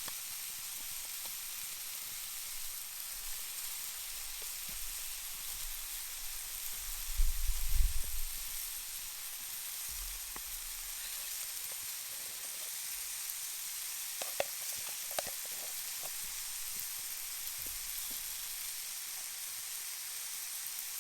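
Chicken and vegetables frying in a large Muurikka pan over a campfire with a steady sizzle. A low rumble rises briefly about seven seconds in, and there are a few light clicks about halfway through.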